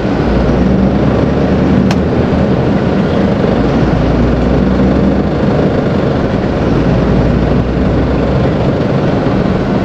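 Mercedes-Benz Atego truck driving along the highway: steady diesel engine and road noise, with one sharp click about two seconds in.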